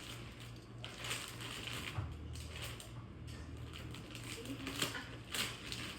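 A large cardboard shipping box being handled: scattered rustles and creaks, about a second in and again near the end, over a steady low hum.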